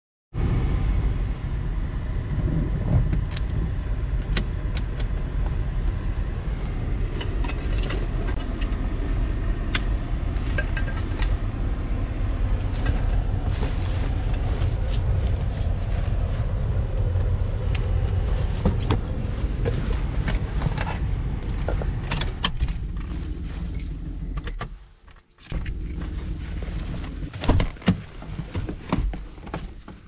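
City street noise with a steady low rumble of passing traffic and many small clicks and knocks. The rumble drops away for a moment near the end, then returns with a few louder knocks.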